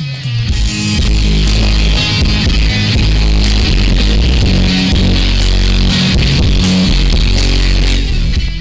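Loud rock band music with electric guitar, heavy bass and crashing cymbals.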